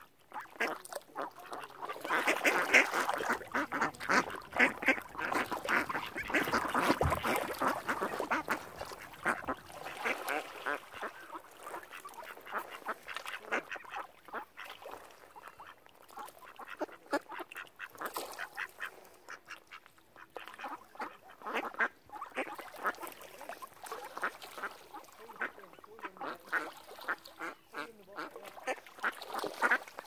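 A flock of ducks quacking in a dense, rapid chatter, loudest for the first several seconds and then carrying on more thinly.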